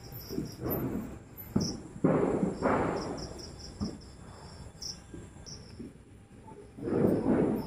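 Crickets chirping in short, high, repeated pulses, with several louder rustling and scuffing sounds from close by, the strongest about two seconds in and again near the end, and a few light clicks.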